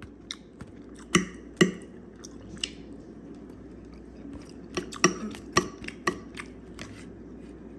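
Scattered sharp clicks and taps of a utensil against a plastic microwave-dinner tray while the food is picked at and eaten, over a low steady background hum.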